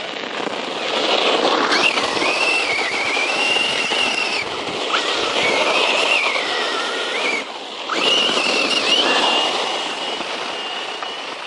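Brushless electric motor of a 1/10 scale RC truck whining, its pitch rising and falling with the throttle, over a steady hiss of tyres skidding during power slides. The whine drops out briefly twice.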